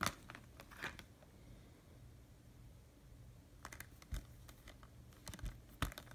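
Plastic Blu-ray cases being handled: a few light clicks and taps as cases are picked up, set down and turned over, with some clustered near the end.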